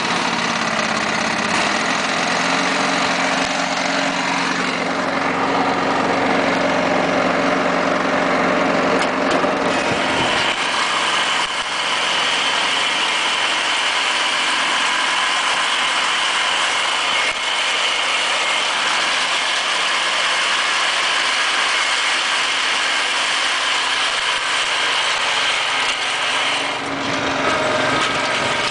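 John Deere lawn tractor engine running while it tows a seven-gang reel mower through the grass. Its note shifts to a higher whine about ten seconds in and eases back near the end.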